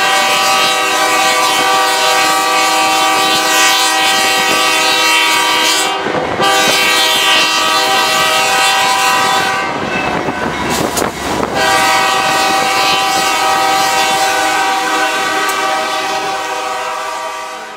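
Locomotive air horn sounding long warning blasts for a level crossing, heard from aboard the train: a loud steady chord with a short break about six seconds in and a longer one around ten seconds, then a last long blast that fades out near the end. Rail clatter fills the longer break.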